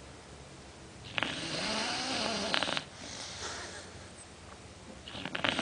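A pet snoring in its sleep: a long rasping snore about a second in, then quieter breathing and a second, shorter snore near the end.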